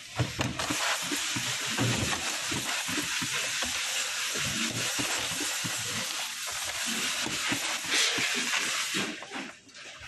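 Corded electric screwdriver driving screws into a plastic keyboard case, with irregular low knocks from the work, over a steady hiss that stops about nine seconds in.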